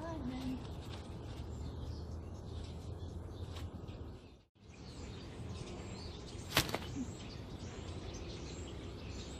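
Outdoor backyard ambience: steady low background noise with faint bird chirps, a brief dropout near the middle, and a single sharp click about two thirds of the way through.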